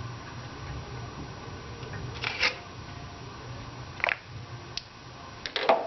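A few short clicks and clatters of hand tools and parts being handled, about two seconds in, again near four seconds and in a quick cluster near the end, over a low steady hum.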